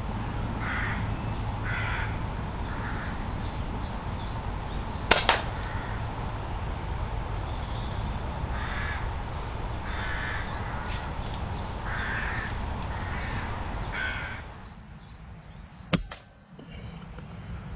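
Crows cawing repeatedly in short calls, with two sharp cracks cutting through, one about five seconds in and another near the end.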